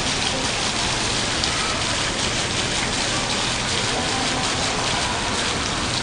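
Water streams from an overhead curtain fountain falling and splashing into the basin below, a steady, even spatter with no breaks.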